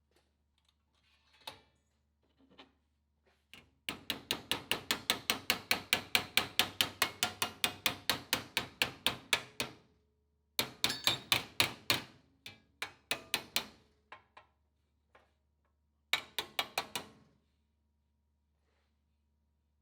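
Hammer beating sheet steel against a dolly in quick, even blows, about five a second, as a flange is formed on a hand-made headlamp panel. The hammering comes in three runs: a long one of about six seconds, a shorter one, and a brief one near the end.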